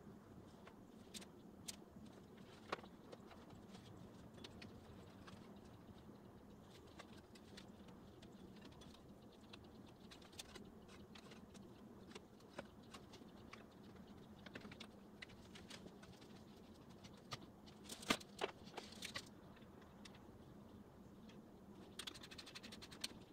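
Near silence broken by scattered light clicks and taps, with a cluster of louder knocks a little past the middle and a quick run of ticks near the end.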